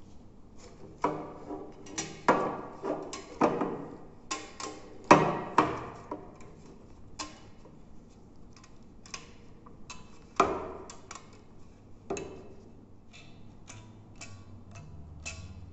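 Rubber bands stretched across a metal baking tray, snapped and plucked so that each gives a short twang that rings briefly and dies away. The loudest twangs come in the first half, with lighter, quicker plucks near the end.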